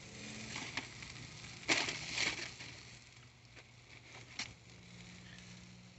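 Steak faintly sizzling over a charcoal grill, with a few short scrapes as a metal spatula works against the meat and grate, the first about two seconds in.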